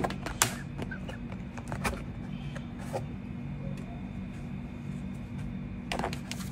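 Light clicks and knocks of food containers being packed into a freezer, over a steady low hum.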